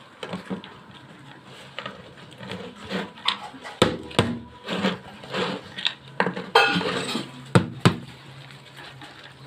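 Plastic water bottle being handled and pressed on a concrete floor, making irregular clicks, knocks and crinkles, the sharpest a little before halfway and twice near the end.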